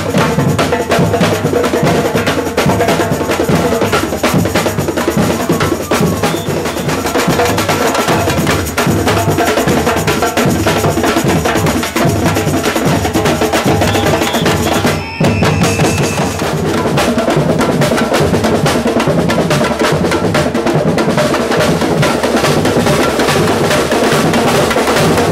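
A street percussion group of several drummers playing a loud, steady drum rhythm, with a momentary gap a little past halfway.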